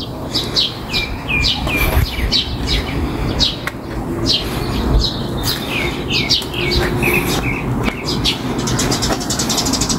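Songbirds chirping: a quick run of short, high notes that each fall in pitch, repeating over a low background rumble. A fast, high ticking joins near the end.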